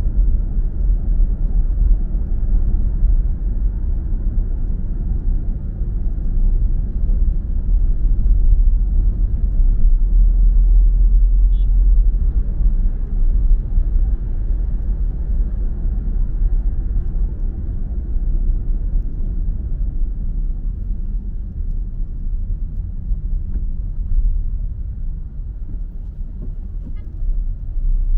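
Steady low rumble of a car driving on a city road, heard from inside the moving car: engine and tyre noise, swelling a little about ten seconds in.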